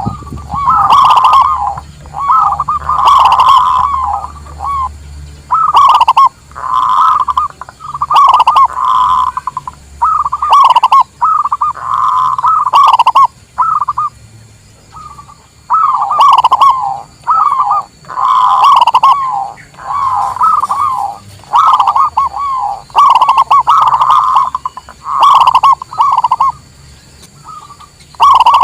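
Zebra doves (local Indonesian perkutut) cooing: a quick run of about twenty short, bubbling, wavering coo phrases, one after another with brief gaps.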